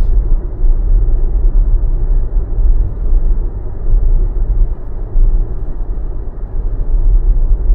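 Steady low road and tyre rumble inside the cabin of a Tesla electric car driving at speed, with no engine note.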